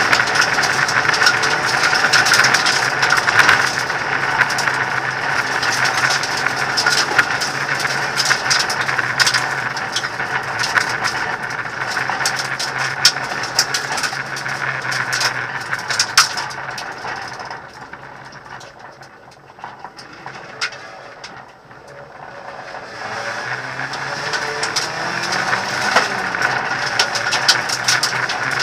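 Hyundai Accent rally car heard from inside the stripped cabin while driven hard on a dirt stage: the engine runs at speed under constant rattling and clicking. About two-thirds through, the engine note drops away for several seconds, then rises again as the car accelerates.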